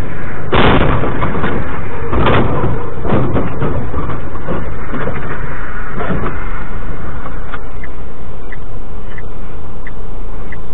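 Loud, steady vehicle noise, broken by two loud bangs about half a second and two seconds in, with smaller knocks after.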